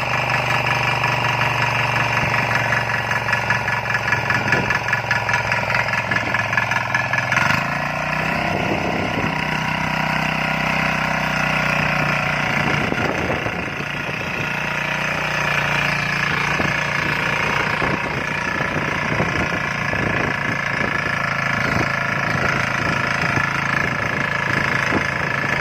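A small petrol engine running steadily. About seven seconds in its note shifts lower, and irregular knocks and rattles run along with it from then on.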